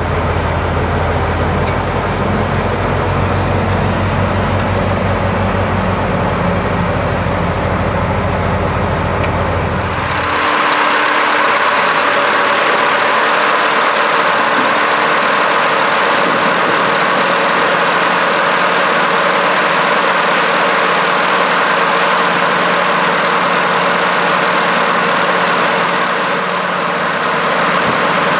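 Heavy diesel truck engine idling, a deep steady rumble; about ten seconds in it gives way abruptly to a brighter, hissing machine sound with a steady high whine.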